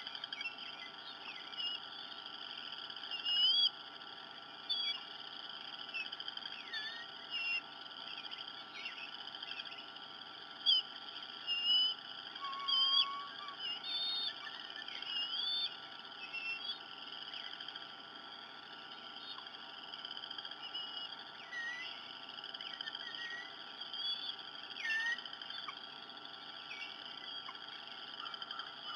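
Many short bird chirps and whistles over a steady high-pitched outdoor chorus, with the loudest chirps a few seconds in and again around ten to thirteen seconds in.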